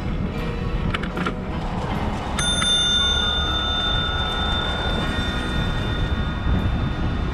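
A bicycle bell rung about two and a half seconds in, its bright ring lingering and slowly fading. Steady wind and road rumble from the moving bike run underneath.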